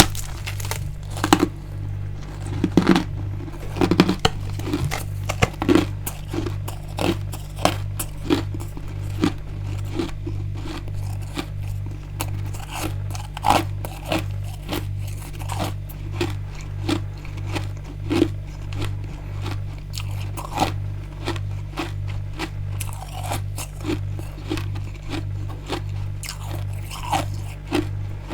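Close-up biting and chewing of hard, frosty freezer ice: many sharp crunches one after another. A low hum pulses evenly underneath.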